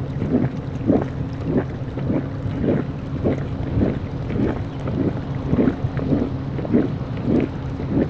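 Strokkur geyser's hot spring water gurgling and surging in regular pulses, a little under two a second, over a steady low rumble.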